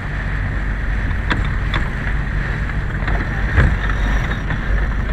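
Sailboat under way: a steady low wind rumble on the microphone over the rush of the water, with a few sharp knocks, the loudest about three and a half seconds in.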